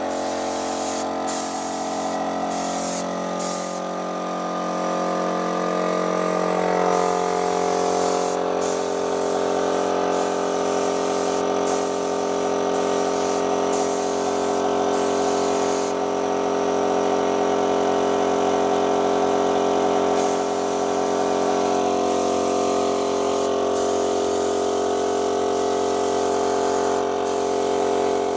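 Electric paint sprayer running steadily while paint is sprayed on, its high hiss breaking off briefly many times.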